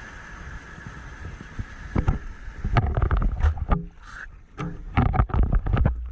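Seawater in the surf rushing steadily, then from about two seconds in a rapid run of splashes and knocks against the camera.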